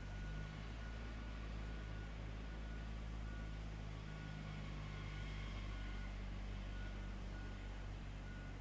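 A concrete paving machine's engine running steadily, a low hum with a faint high tone coming and going on and off.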